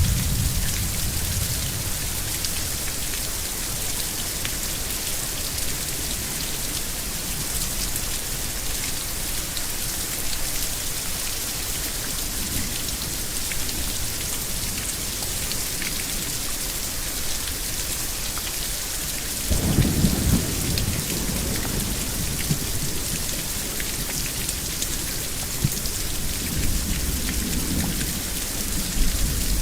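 Thunderstorm: heavy rain falling steadily, with thunder. A low rumble fades in the first second, a louder clap of thunder rolls about two-thirds of the way through, and more rumbling follows near the end.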